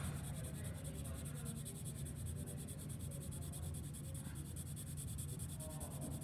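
Graphite pencil scratching on paper in shading strokes, over a steady low hum.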